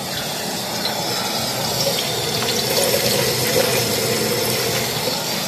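Sliced onions sizzling steadily in hot ghee in a kadai, being browned for a curry base.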